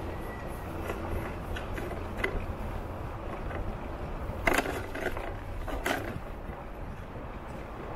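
Steady low rumble of riding along a street, with a few sharp clicks or knocks, the loudest two about four and a half and six seconds in.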